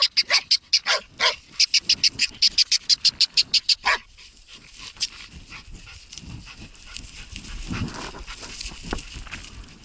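Laika hunting dog barking in a fast, steady run of short, high barks, about four to five a second, at a hole in the snow where it is holding game. The barking stops about four seconds in, leaving faint rustling and handling noise.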